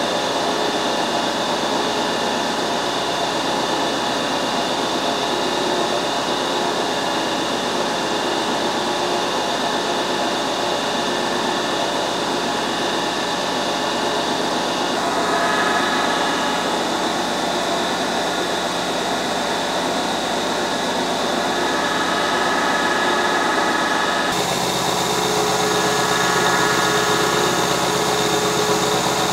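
Milling machine running steadily, a T-slot cutter machining slots in a cast-iron drill press table. The tone changes about halfway through and again near the end.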